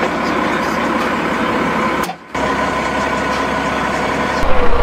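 Case IH farm tractor's diesel engine idling steadily, briefly cut about two seconds in and running louder and deeper near the end.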